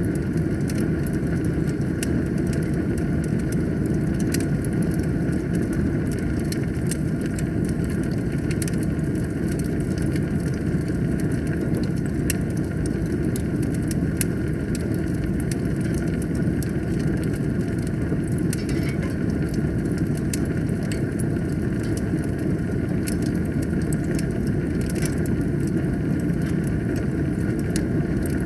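Wood fire burning in a fireplace: a steady low roar with frequent small crackles and pops scattered throughout.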